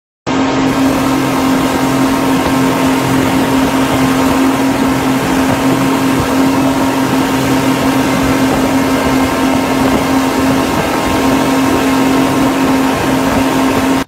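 Twin outboard motors running at high speed on a speedboat under way: a loud, steady engine drone with a strong hum, mixed with the rush of water and wind.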